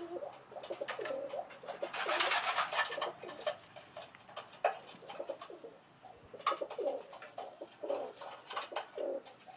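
Pigeons cooing in low repeated calls, with a loud rustling burst about two seconds in and scattered clicks.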